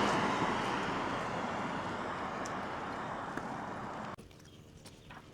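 A passing vehicle's noise fading steadily as it moves away, then dropping suddenly to a much quieter background about four seconds in.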